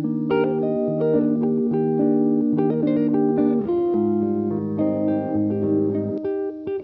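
Background music: plucked guitar with bass, notes and chords changing every second or so.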